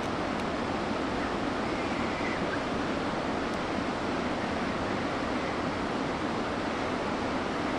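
Steady rushing of a mountain river, an even noise with no breaks.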